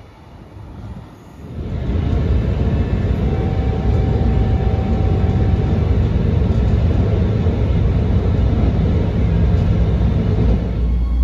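Ride noise inside a River Line Stadler GTW diesel light-rail car running at speed: a steady low rumble of the diesel engine and the wheels on the rails, starting about two seconds in after a quieter stretch. A faint thin whine sounds for a few seconds in the middle.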